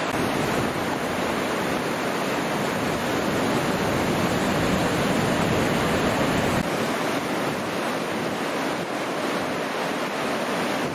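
Ocean surf breaking on a beach: a steady rush of whitewater, with wind buffeting the microphone. The low rumble eases about two thirds of the way in.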